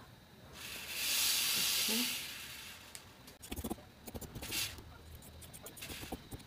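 Fabric being handled and cut with dressmaking scissors: a loud hissing rustle of cloth lasting under two seconds, then clusters of crisp snips and clicks as the scissor blades work through the folded fabric.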